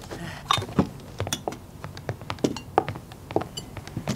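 Dishes and cutlery clinking and knocking as a table is laid: a quick, irregular run of short clinks and taps.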